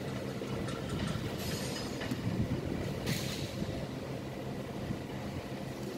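Steady low hum and rumble of background machinery, with two brief hissing rustles about one and a half and three seconds in.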